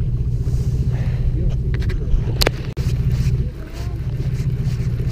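Boat engine running with a steady low rumble, and one sharp click about two and a half seconds in.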